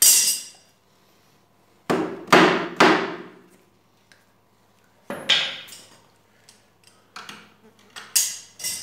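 A hammer striking the head of a long steel bolt set in a wooden chair frame, each blow ringing briefly. There is a hard strike at the start, three quick blows about two seconds in, more around five seconds, and lighter taps near the end.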